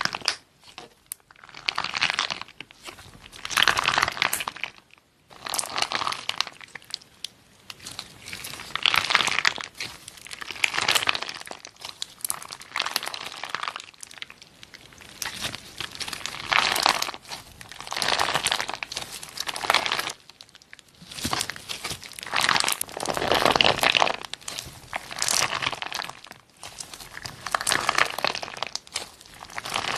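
Slime being squeezed and pressed by hand, giving repeated bursts of fine crackling every second or two with short pauses between.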